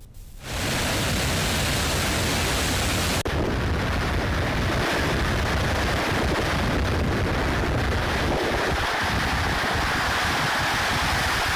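Heavy floodwater rushing out through the raised spillway gates of the Taliperu dam, a steady rush of water with one brief break about three seconds in.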